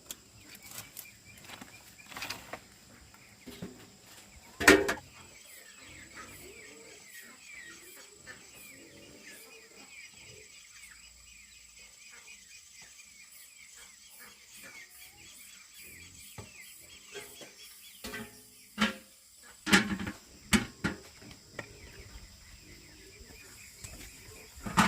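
Small birds chirping steadily in the background, broken by a few loud, short sounds: one about five seconds in and a cluster of three or four near the end.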